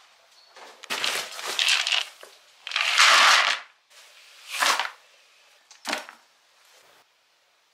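Dry horse feed being scooped and tipped into a plastic bucket: chaff and feed cubes rustling and pouring in a few short bursts, the loudest about three seconds in.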